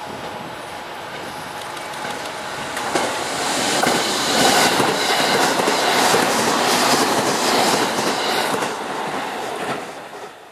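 E531-series electric commuter train passing close by: its running noise builds as it approaches, the wheels clack rapidly over the rail joints as the cars go past, and the sound dies away near the end.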